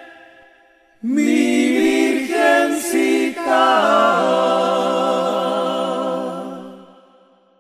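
Group of voices singing the closing phrase of a devotional song without words: a few stepped notes, then a long final chord with vibrato that fades out.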